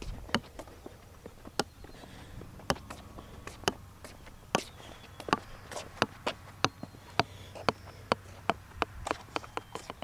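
Golf ball bouncing on a concrete sidewalk: a run of sharp, hard clicks, one per bounce, coming closer together toward the end.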